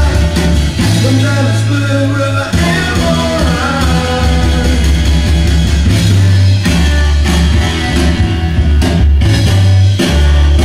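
A garage rock 45 rpm vinyl single playing on a turntable: rock and roll with singing and guitar.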